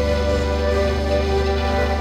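Ambient music of sustained, layered tones held over a steady low bass note, with no beat.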